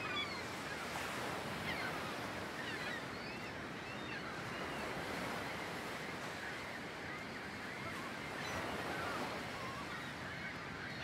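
Steady, quiet outdoor hiss of wind and distant surf, with scattered faint high chirps.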